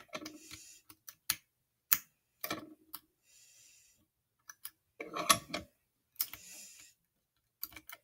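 Lock pick and tensioner working the pins of a Mindy padlock: scattered sharp metallic clicks and short scrapes at irregular intervals as the pins are set, with the crunchy feedback of serrated pins.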